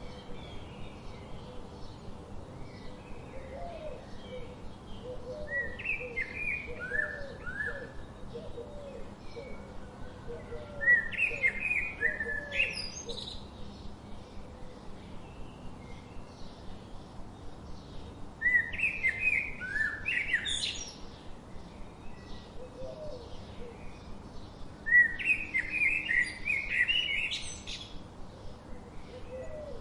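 A songbird singing short phrases of quick, sliding whistled notes, repeated four times about every seven seconds, with fainter chirps between the phrases.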